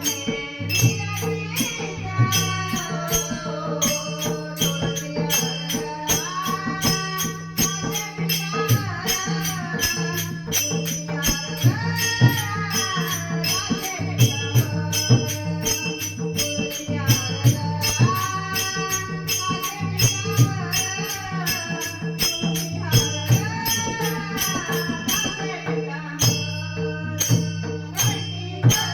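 Marathi devotional bhajan: a woman sings a gliding, ornamented melody over a steady low drone, with a mridang drum and a fast, even clatter of jingling percussion keeping the beat.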